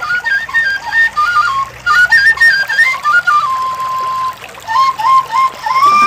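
Background music: a single high melody line in a flute-like tone, moving in quick stepwise runs and trills, with one long held note about halfway through.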